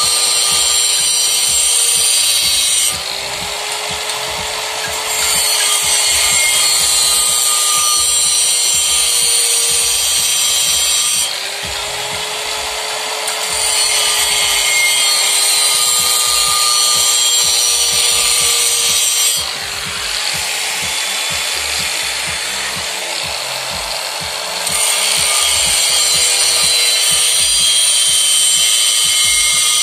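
Corded angle grinder running continuously with its disc worked against the inside of a cast-iron brake drum. The grinding goes harsh and loud, then eases three times for a few seconds each before biting again.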